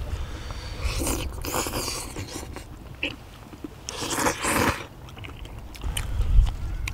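People eating spicy stir-fried chicken and udon noodles with chopsticks: two long noodle slurps, about a second in and again around four seconds in, with chewing and small clicks between them. A low thump comes near the end.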